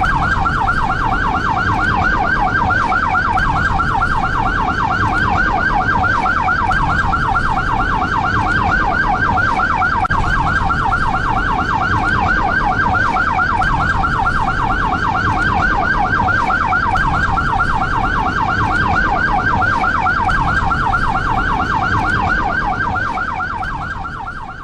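SAMU ambulance siren wailing in a fast yelp, its pitch sweeping up and down several times a second over a low rumble, then fading out near the end.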